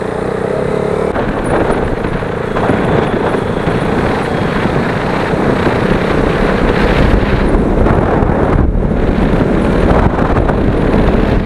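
Motorcycle being ridden along a road: engine running under a steady rush of wind and road noise on the microphone. The sound cuts off suddenly at the end.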